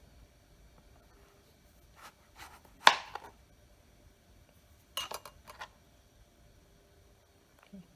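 Kitchenware being handled on a counter: a few scattered knocks and clinks, the loudest about three seconds in, then a quick cluster of three or four about five seconds in.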